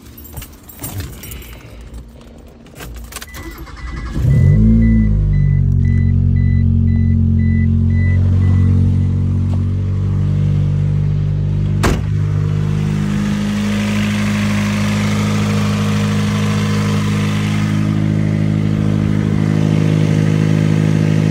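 Keys rattle and an evenly beeping chime sounds. Then, about four seconds in, the 1991 Mazda 323's four-cylinder engine is started and settles into a steady idle on its fresh oil, the first run after an oil change. A single sharp click comes about twelve seconds in.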